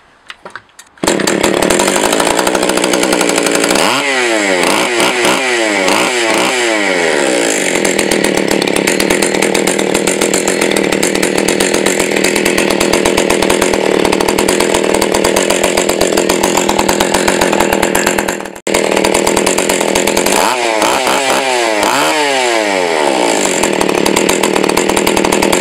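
Stihl 020 two-stroke chainsaw running loudly with its bar and chain off, coming in about a second in. It is revved up and let fall back twice, so the clutch drum spins. This is a test run to check that the repaired oil pump now oils, and it does.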